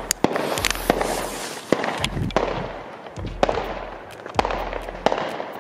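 Fireworks and firecrackers going off in an irregular series of sharp bangs, some loud and close together, over a continuous crackling hiss.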